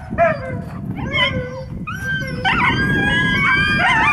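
Alaskan malamutes crying out in short yips and whines, then several howling together from a little past halfway, with a low rushing noise underneath.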